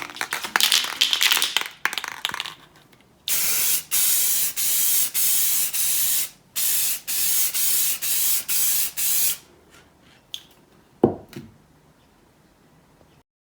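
Aerosol spray can of gloss top coat sprayed in about ten short hissing bursts. Before the spraying there is a brief crackly rattle, and near the end two light knocks.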